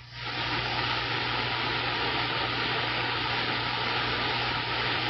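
CB radio receiver static: a steady hiss of open-channel noise with a low hum under it, starting abruptly as the last transmission ends and holding at an even level.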